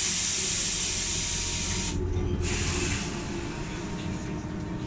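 A loud burst of compressed air hissing from the trolleybus's pneumatic system for about two seconds, cutting off sharply, then a short weaker hiss. Under it is the low running noise of the bus.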